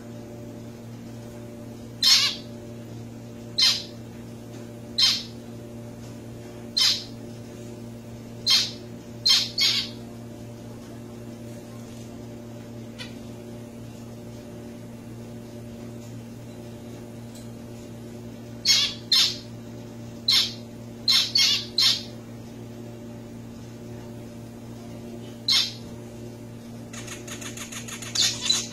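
Zebra finches giving short, loud calls: singly and in quick twos and threes, with gaps of several seconds between bouts. Near the end a faster run of notes begins.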